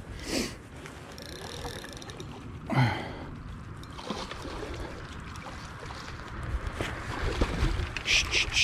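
Hooked wels catfish splashing and thrashing at the surface near the bank while being played on a spinning rod, with low wind and handling rumble. A short low sound falls in pitch about three seconds in, and a fast run of splashes, about five a second, starts near the end.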